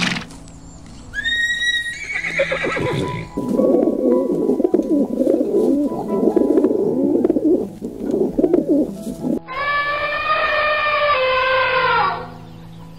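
A series of animal calls: a short call about a second in, several seconds of dense warbling, then a long call that falls slightly in pitch, followed by another near the end.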